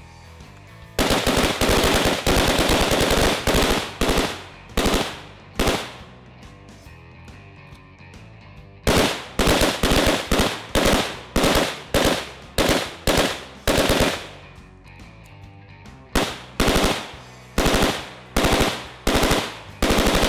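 AR-style rifles firing on full auto. A long continuous burst starts about a second in, followed by a few single shots. After a pause comes a fast string of shots, then another pause, then spaced single shots or short bursts near the end.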